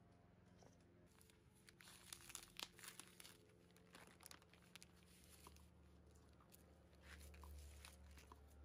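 Faint crinkling and tearing of a vacuum-sealed plastic package of herring being pulled open by gloved hands. The crackling is densest in the first half, then thins to scattered rustles as the semi-frozen fish are lifted out.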